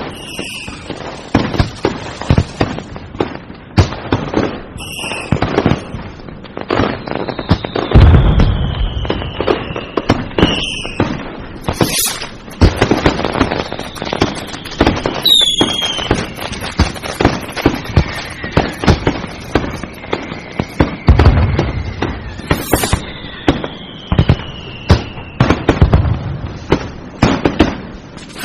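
Fireworks and firecrackers going off without pause: a dense run of sharp cracks and bangs, two heavy booms, and several long whistles that slowly fall in pitch.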